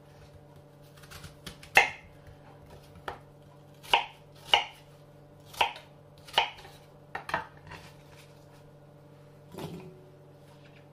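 Kitchen knife chopping peeled apples into chunks on a wooden cutting board: about nine sharp knocks of the blade through the fruit onto the board, at uneven intervals.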